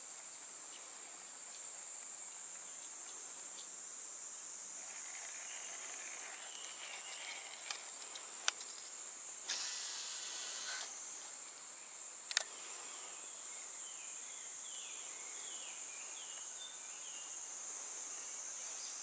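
Steady high-pitched chorus of insects, with faint chirping calls running under it. A few sharp clicks and a brief rush of noise about ten seconds in break through.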